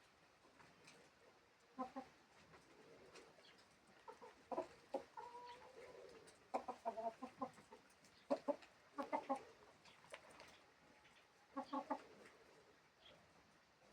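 Chickens clucking: short clusters of quick, clipped notes every second or two, with quieter gaps between.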